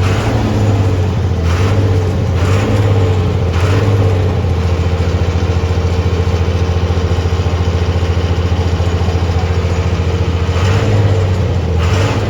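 A motor vehicle's engine running steadily at idle, a constant low hum with a fast, even pulse, with a few brief whooshes.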